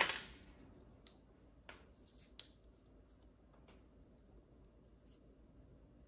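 Faint, scattered small clicks and light scraping as fingers handle and pry at the plastic and metal parts of a GFCI outlet's internal mechanism.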